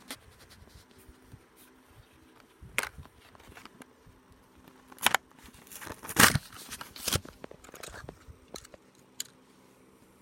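Hot Wheels blister pack being handled and torn open: crinkling plastic and tearing cardboard in a few sharp bursts, the longest and loudest about six seconds in, with small ticks and rustles between.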